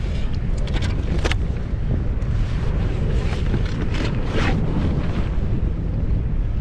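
Steady wind buffeting the microphone over water lapping at a fishing kayak, with a few short splashes about a second in and again around four seconds in.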